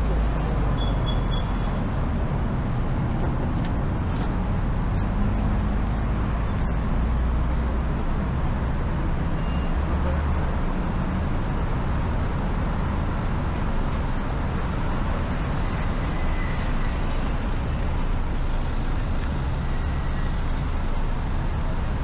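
Steady city road traffic: cars and buses running past along a busy embankment road, a continuous low noise of engines and tyres with no breaks.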